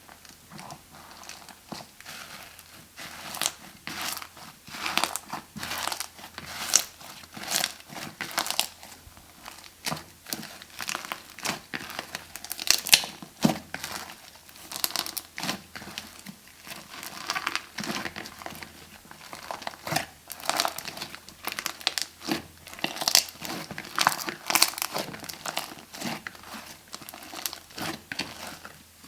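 Slime being squeezed and kneaded by hand, giving a dense run of irregular crackles and pops.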